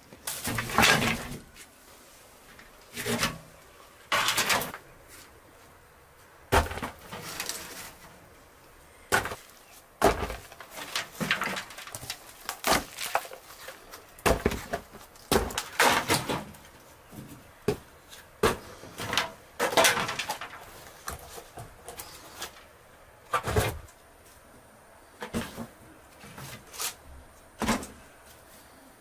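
Dry firewood sticks and branches knocking and clattering as they are dropped and handled beside a clay tandoor, in irregular bursts with short pauses between.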